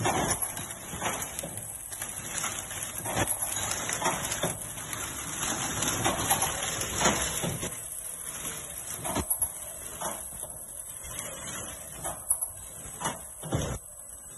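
Im Tech TORNADO PBA horizontal flowpack packaging machine running: a continuous mechanical clatter of its conveyor chain and drives, broken by irregular sharp clacks and knocks from the moving sealing and holding mechanisms.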